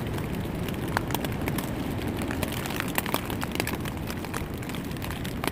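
Rain and wind on a tent: a steady rush, with many single raindrops ticking sharply on the tent fabric.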